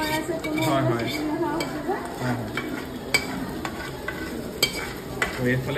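Steel ladle scraping ground leafy-green paste from a small pan into a hot iron kadhai of frying masala, over a steady sizzle. Several sharp metal clicks, the loudest about three seconds in.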